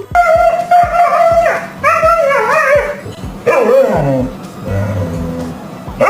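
A dog vocalizing in drawn-out, wavering whines and howls, over background music with a steady beat.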